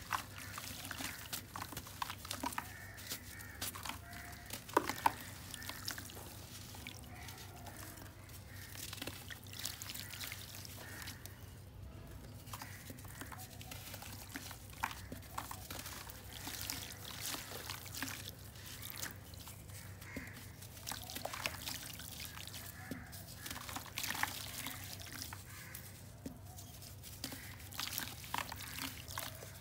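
A lump of dry earth crumbled between fingers, grains and small clumps pattering and dripping into water in a plastic tub as many small irregular clicks. Near the end, water is poured into the tub.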